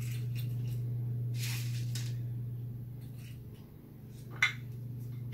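Dry dehydrated celery pieces dropped by hand into an electric spice grinder's cup, light rustling, with one sharp click about four and a half seconds in, over a steady low hum.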